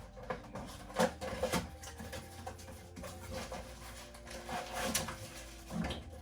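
Handling noise from a newly bought finishing sander and its packaging: scattered clicks, knocks and rustling, the sharpest about a second in.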